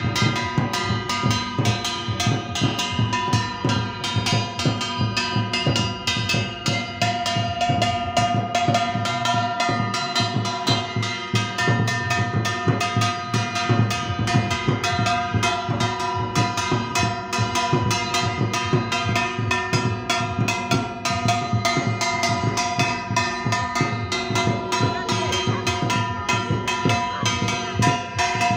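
Rapid, steady drumming with clanging metal percussion and long ringing tones, kept up without a break.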